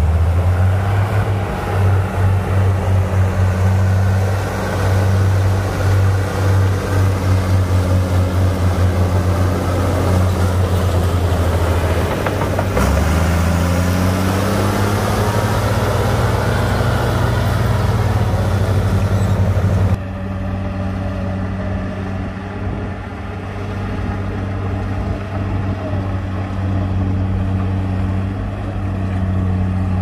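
Komatsu D58P crawler bulldozer's diesel engine working as it pushes soil, with a pulsing throb, then revving up in pitch about 13 seconds in. About 20 seconds in the sound cuts abruptly to a quieter, steadier engine run.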